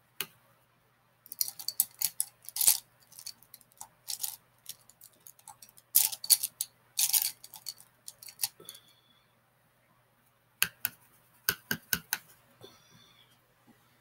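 Makeup products being handled on a table: small plastic clicks and taps of compacts and brushes, in irregular clusters with short pauses between.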